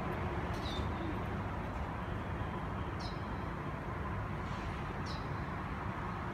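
Steady low hum of city traffic, broken three times by a short, high, falling chirp, about a second, three and five seconds in.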